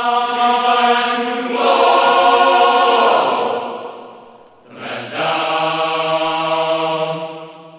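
Song with a singing voice holding long, drawn-out notes in two phrases, with a brief drop between them about halfway, then fading out near the end.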